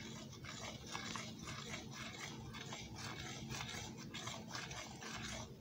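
A spoon stirring thickening raisin pie filling in a stainless steel saucepan: a steady run of small irregular clicks and scrapes against the pot as the filling sets.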